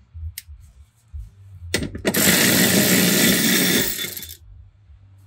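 A socket tool spins a bolt loose under the car: about two seconds of loud, dense running, tailing off near the end. A few light metallic clicks come before it.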